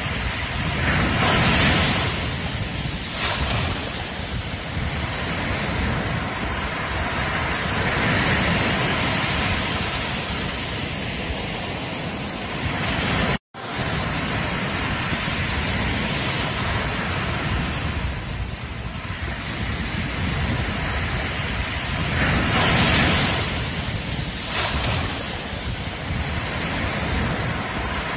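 Ocean waves washing onto a beach, a steady rush of surf that swells and eases every several seconds, with wind on the microphone. The sound cuts out for an instant about halfway through.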